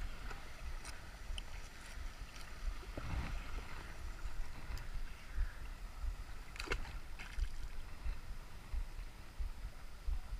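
Shallow river water sloshing and splashing as someone wades in it, with wind rumbling on the microphone and a sharp knock about two-thirds of the way through.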